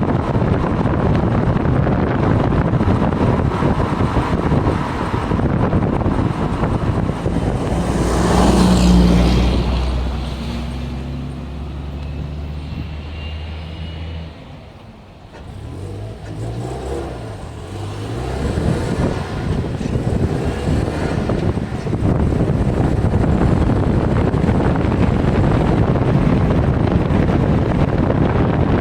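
Car fitted with Endless MX72 brake pads, driven with steady road and wind noise. It slows about a third of the way in, with a faint high squeal from the brakes and the engine running at low speed. It nearly stops around the middle, then pulls away and the road noise builds again.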